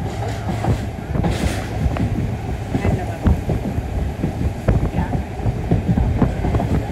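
Passenger train carriage running at speed: a steady low rumble with irregular clicks and knocks from the wheels and the coach. There is a brief hiss about a second and a half in.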